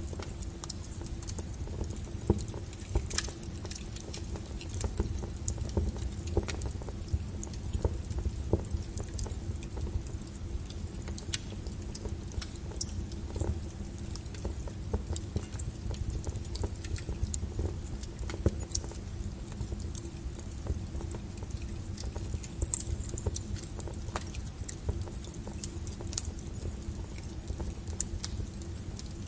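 A small wood fire crackling in a fireplace: irregular sharp pops and snaps, several a second, over a steady low rumble of the flames.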